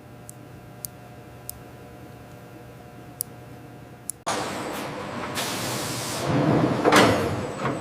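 A faint steady machine hum with a few sharp ticks; about four seconds in, a loud hiss cuts in suddenly and swells near the end.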